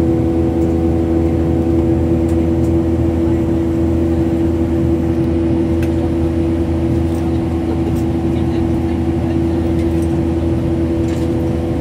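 Jet airliner cabin noise in flight, heard from inside the cabin: a steady drone of engines and airflow with a constant hum.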